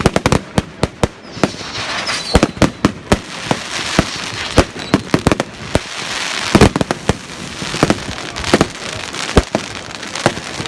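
Fireworks going off: many sharp bangs at uneven intervals, several close together, over a crackling hiss that thickens in the middle.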